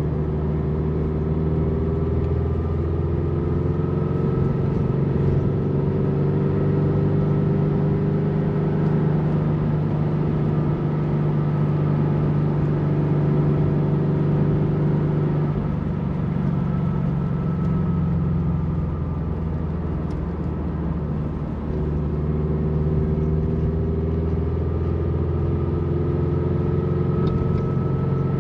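Turbocharged Scion FR-S's flat-four engine heard from inside the cabin while driving, over tyre and road noise. The engine note climbs slowly in pitch, eases off a little past halfway, then builds again near the end.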